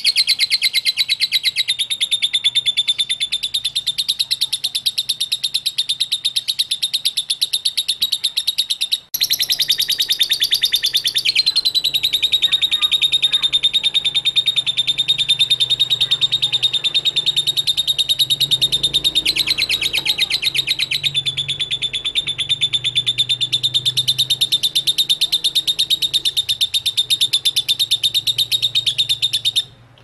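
Lovebird's long, unbroken chattering trill, the 'ngekek' song: a very fast run of high chirps. It breaks off briefly about nine seconds in, then goes on again until just before the end.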